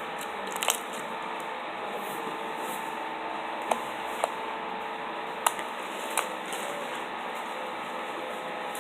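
Slime being squished and played with close to the microphone, with about five short, sharp pops from the slime over a steady background hiss.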